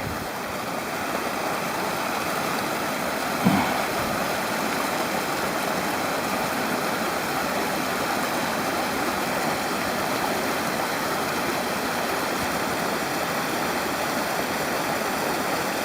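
Mountain stream water rushing steadily over rocks, with one brief low sound about three and a half seconds in.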